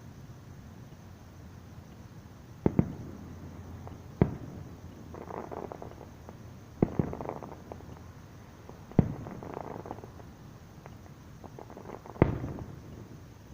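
Aerial fireworks heard from a distance: six sharp booms, a quick double about three seconds in and then single ones every two to three seconds, each trailing off in an echo. Softer crackling fills the gaps between them.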